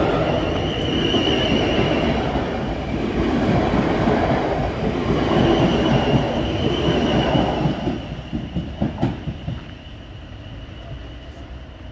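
South Western Railway Class 450 Desiro electric multiple unit passing close by as it pulls away: a loud rush of wheel and running noise, with a high steady tone standing out twice. About eight seconds in, a quick run of wheel clatter comes as the last bogies go by, then the sound drops away as the train leaves.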